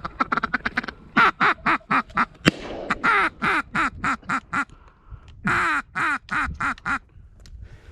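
Duck quacking in four fast runs of short, loud quacks, each run a string of about five to nine quacks. A single sharp click comes about two and a half seconds in.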